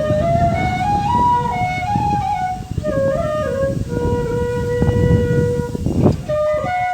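Background music: a flute playing a slow stepping melody of held notes, over a dense low noise.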